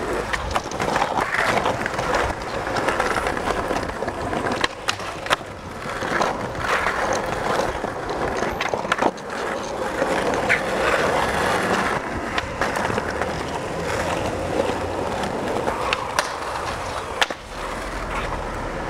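Skateboard wheels rolling over street pavement: a steady rough roll broken by scattered sharp clacks.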